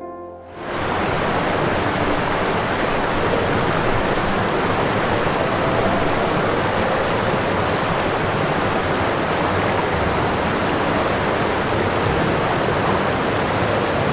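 Steady, even rushing noise with no tones or rhythm, coming up quickly about half a second in and cutting off abruptly at the end.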